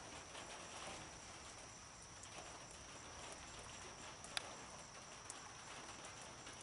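Faint night-time chorus of crickets, a steady high trill over quiet outdoor background noise, with a sharp click about four and a half seconds in.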